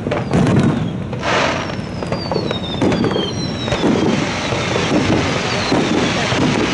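Fireworks display: repeated bangs and crackling bursts, with several high whistles sliding down in pitch.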